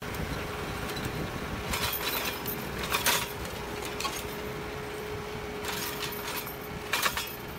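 Tractor running steadily while pulling a Kadıoğlu EKO sensor-equipped inter-row hoe whose four discs cut through the soil, with several short bursts of metallic clinking and rattling.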